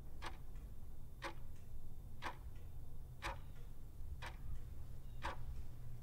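Steady clock-like ticking, one sharp tick about every second with a fainter tick just after each, over a low steady hum.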